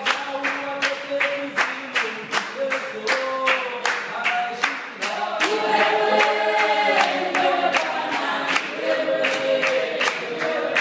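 Background music: a choir singing in harmony over a steady percussive beat.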